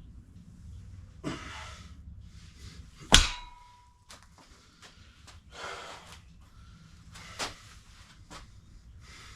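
Gym weights clanking once, loudly, about three seconds in, with a short metallic ring after the hit. A few quieter short noises come before and after it.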